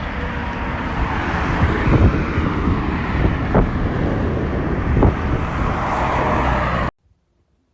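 Wind buffeting the microphone over rolling noise while riding, with a few sharp knocks from bumps. The sound cuts off abruptly near the end.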